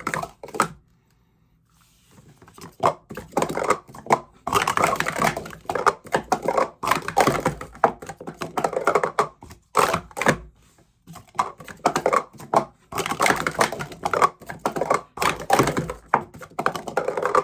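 Plastic sport-stacking cups clattering rapidly as they are stacked up and down in quick runs of clicks and knocks, with brief pauses between runs.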